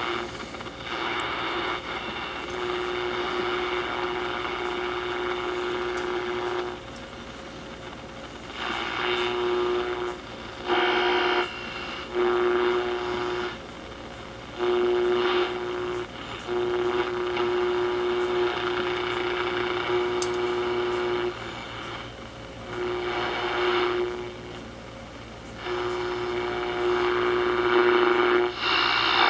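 Hitachi WH-822 AM/SW transistor radio tuned between stations: a static hiss with a steady whistling tone that cuts in and out many times and louder patches of noise, no station coming in clearly.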